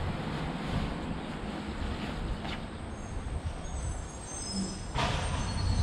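Rustling of a down sleeping quilt's nylon shell as it is pulled and wrapped around a seated person, over a low wind rumble on the microphone; a sharper rustle comes about five seconds in.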